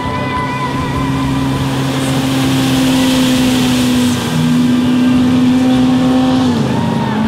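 Engine of an antique wooden powerboat running at speed past the listener: a steady drone that grows louder, then drops in pitch about six and a half seconds in as the boat goes by.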